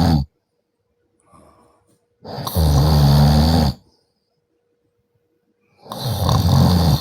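A man snoring loudly, one long low snore about every three seconds: one ends just after the start, one comes about two seconds in and one near the end, with a faint breath between the first two.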